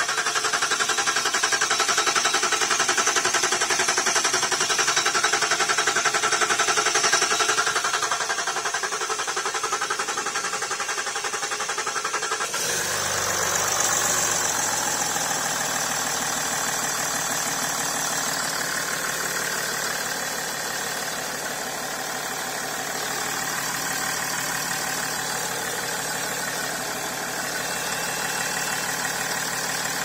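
Range Rover Sport engine started on a bypassed low-pressure fuel supply and running. About twelve seconds in, the sound changes and settles into a lower, steadier idle.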